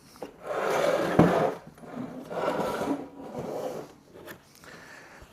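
Handling noise from the sofa: three rubbing, scraping strokes, as of fabric dragged over a wooden frame, with a single knock about a second in.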